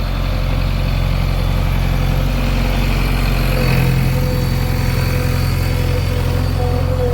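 Heavy diesel engine running steadily, with a steady whine above it; the engine note shifts about three and a half seconds in.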